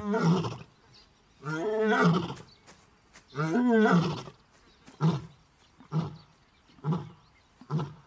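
Desert lioness roaring: two long rising-and-falling moans, then four short grunts about a second apart that get softer. A contact roar, seemingly calling for her missing sister.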